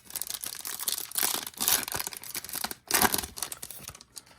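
Foil wrapper of a Topps Chrome baseball card pack being torn open and crinkled, in a run of rough tearing and rustling bursts with the loudest about halfway and near three seconds in, fading out just before the end.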